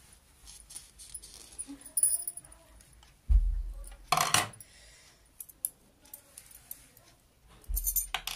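Small metal sewing machine shuttle parts clinking and rattling as they are handled and worked with a screwdriver during disassembly for cleaning, with scattered light clicks. A low thump about three seconds in is followed by a short metallic rattle, and a second thump and rattle come near the end.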